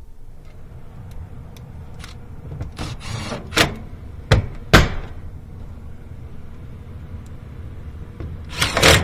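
Sharp clacks and knocks from tools and parts on an air handler's metal cabinet during HVAC service work: a short rush about three seconds in, three clacks over the next two seconds, and a louder scrape near the end. These sit over the steady low hum of the running air handler.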